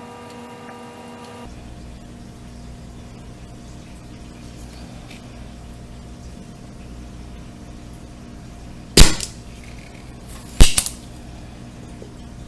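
A spring-loaded desoldering pump (solder sucker) firing twice, about a second and a half apart: each release of the plunger gives a loud, sharp snap as it sucks melted solder off the sensor board's joints. A low steady hum sits underneath.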